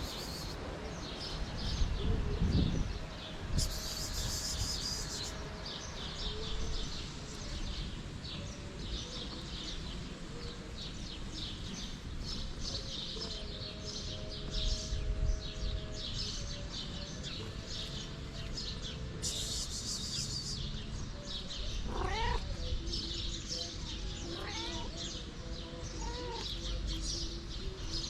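Cats meowing, a few short rising-and-falling calls near the end, over steady background chirping and a low rumble of wind on the microphone.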